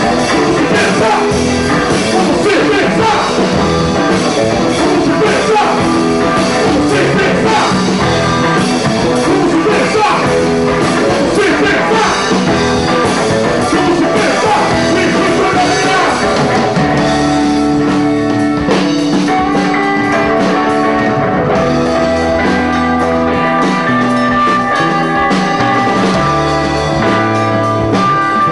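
Live rock band playing electric guitars and bass, with a male singer's voice over the first half. In the second half the guitars hold long, sustained notes.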